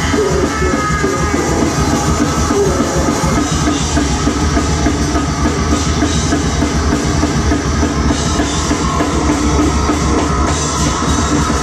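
Live noisecore band playing at full volume: a drum kit under a dense wall of distorted guitar and harsh electronic noise, steady and without a break.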